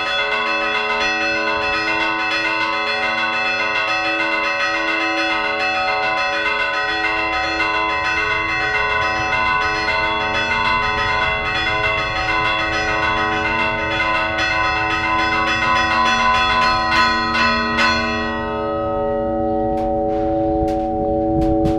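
Church bells rung by hand, their clappers pulled on ropes in a fast repique of many close strikes over several bell notes. About eighteen seconds in the fast strikes stop and the larger bells keep humming, with a few knocks near the end.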